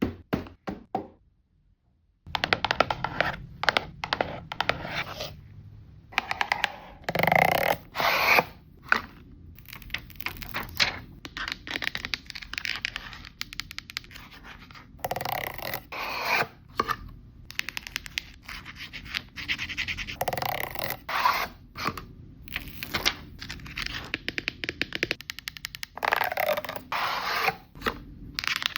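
Close-miked unboxing sounds: hands opening and handling a blind-box package and a plastic phone case, with rapid tapping, scraping and crinkling. There is a brief pause about a second in.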